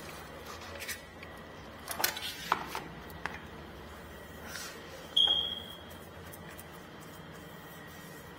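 Painting tools being handled along a baseboard: a few light taps and rubs, then one sharp clink with a brief high ring about five seconds in, typical of a metal paint shield knocking against trim or the floor.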